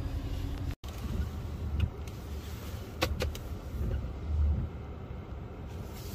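Car running, heard from inside the cabin: a steady low engine and road rumble that swells briefly past the middle, with a few sharp clicks.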